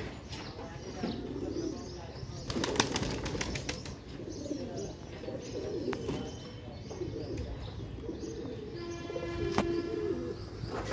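Domestic pigeons cooing repeatedly, with a quick flurry of wingbeats about two and a half seconds in.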